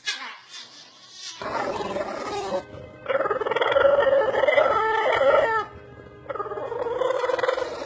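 A dog making strange pitched vocal calls: a short one, then two long drawn-out ones.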